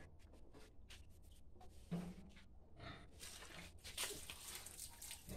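Faint, irregular scratching, rustling and light knocks, with one louder thump about two seconds in and denser rustling from about three seconds on.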